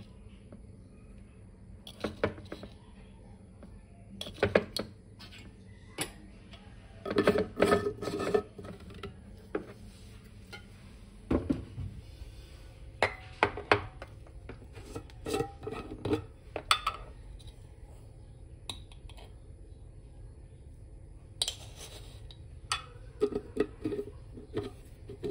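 Dishes, pots and cutlery clattering: irregular knocks and clinks, some of them ringing briefly, in clusters with short pauses between.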